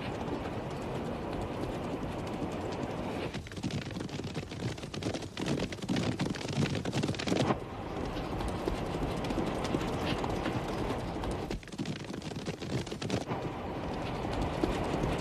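Horses galloping: a dense clatter of hoofbeats, loudest about halfway through.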